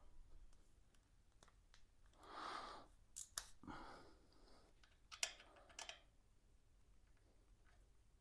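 Faint handling noises of small parts being fitted on a motorcycle's radiator grill: a soft rustle about two seconds in, then a few short sharp clicks.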